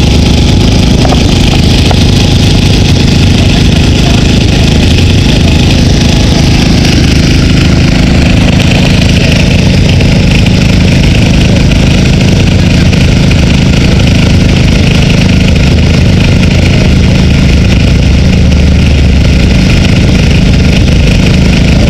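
An engine running steadily at one constant speed, loud and close, with no revving.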